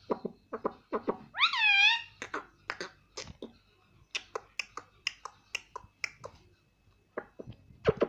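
Indian ringneck parakeet tapping and pecking its beak against a small mirror on a plastic lid, making quick irregular clicks. It gives one short squawk whose pitch dips, about a second and a half in.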